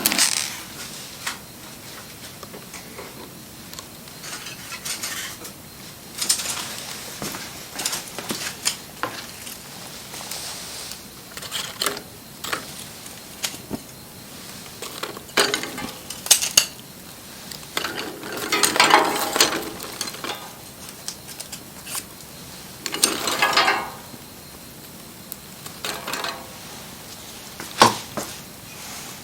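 Wood fire crackling, with irregular sharp pops and snaps over a low steady hiss, and two longer, denser bursts of crackling about two-thirds of the way through.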